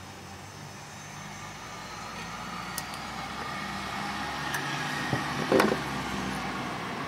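A steady engine drone that slowly swells over several seconds, with a few light metallic clicks and one sharper knock about five and a half seconds in as a hex key works the bandsaw's lower blade guide.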